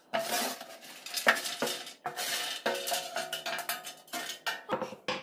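Roasted chickpeas rattling and rolling against a metal oven drip tray in an irregular clatter, as a dry cloth is rubbed over them to soak up the excess oil.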